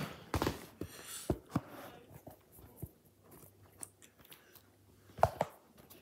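Hoover front-loading washing machine in its wash phase, wet laundry tumbling in the slowly turning drum with irregular soft thumps and clicks, the loudest pair about five seconds in, over a faint steady low hum.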